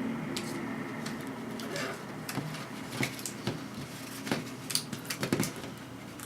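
Scattered light clicks and taps of tape being pressed and smoothed over a drill template on a plastic computer case shell, over a steady low hum.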